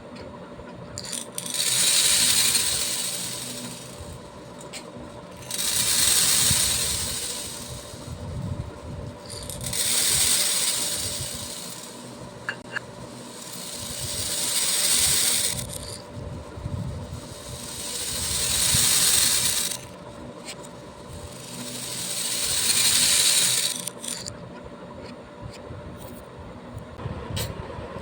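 Handfuls of small beads poured in a rattling stream, again and again: six pours of about three seconds each, each rising quickly and then trailing off, with short pauses between them.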